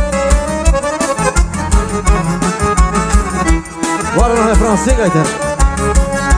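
Forró band playing an instrumental stretch of a xote: accordion melody over a steady bass drum beat, with a few sliding notes about four seconds in.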